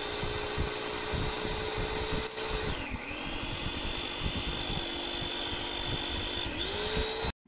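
OTTO CP-390B glass-bowl food chopper's motor running with a steady whine while its four blades churn a wet mixture, with irregular low knocking from the food in the bowl. About three seconds in the whine sags and picks back up, again just before the end, and then it cuts off abruptly.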